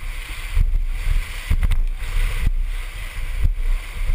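Whitewater rushing and splashing around a river raft, with a heavy low rumble throughout and a few sharp splashes or knocks.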